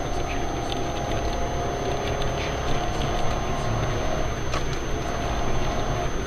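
Steady vehicle noise: engine and road rumble.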